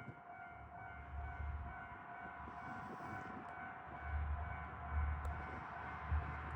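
Kishu Railway diesel railcar running, a steady whine of several tones over a low rumble that swells and fades.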